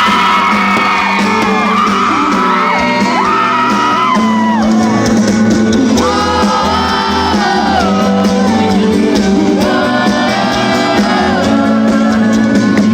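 Live sertanejo band music at a concert, with a crowd singing along and shouting and whooping.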